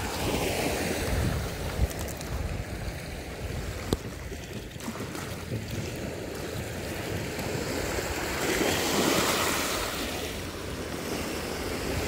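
Small sea waves breaking and washing over a pebble beach, swelling twice: near the start and again about nine seconds in.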